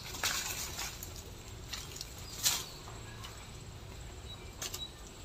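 Quiet outdoor ambience with a handful of brief crackles and rustles of dry leaves and litter, the loudest about two and a half seconds in, over a faint steady low hum.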